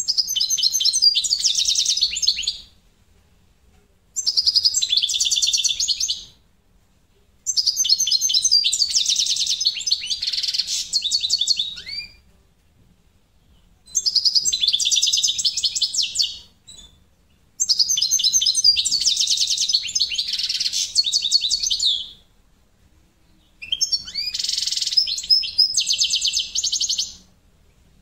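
European goldfinch of the parva race singing six bursts of rapid, high twittering song, each a few seconds long, with short pauses between. The song carries the note that its keeper hears as 'tao-tao' rather than 'dao-dao'.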